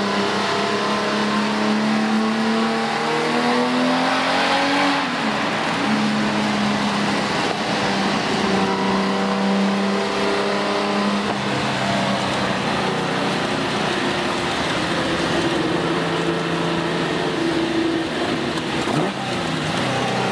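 Tuned 3.1-litre L28-based straight-six of a Nissan Skyline KGC10 on Weber 50 mm carburettors, heard from inside the cabin under hard acceleration. The revs climb for the first few seconds, drop sharply at an upshift about five seconds in, then the engine pulls at steadier revs with further drops in pitch around eleven and nineteen seconds.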